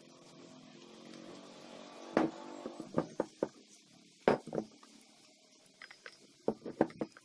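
A faint hum for the first two seconds, then a series of short, sharp knocks and clanks as a polished motorbike wheel hub is handled and set against a wooden board, some of them in quick clusters of two or three.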